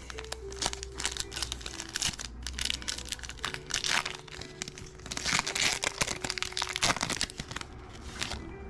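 Foil wrapper of a Topps basketball card pack being torn open and crinkled by hand: an irregular run of crackling rustles and tearing, loudest about four seconds in and again from about five to seven seconds.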